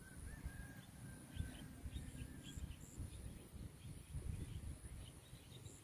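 Quiet rural outdoor ambience: faint scattered bird chirps and a thin whistle over a low rumble and a steady high-pitched hiss.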